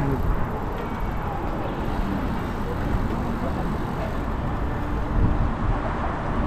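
Wind rumbling and buffeting on the microphone of a camera on a moving bicycle, along with the road noise of the ride and faint chatter from the riders around it.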